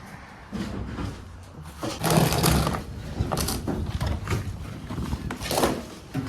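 Stored belongings being pulled out and shifted by hand: rustling and scraping with a few knocks, loudest about two seconds in.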